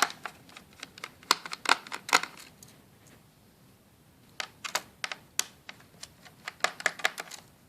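Sharp, irregular little clicks and taps of a small screwdriver and tiny screws on a laptop's plastic case, coming in three quick clusters with short pauses between.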